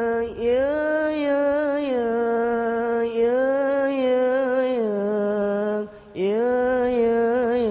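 A solo male singer of a hadroh group singing a long, ornamented Arabic sholawat phrase into a microphone, without drums. The notes are held and wavering, with a brief breath break about six seconds in.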